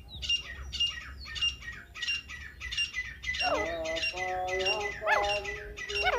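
Caged decoy francolin (teetar) calling in a fast, steady run of sharp high notes, about three a second, to lure wild francolins to the noose traps. About halfway through, a lower, drawn-out whining sound with rising and falling pitch joins underneath.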